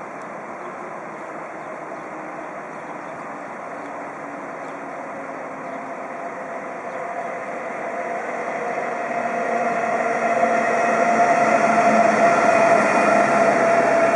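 DB Class 101 electric locomotive hauling an Intercity train, passing close by: a steady whine of several held tones over rolling noise, growing steadily louder from about halfway and loudest near the end as it goes past.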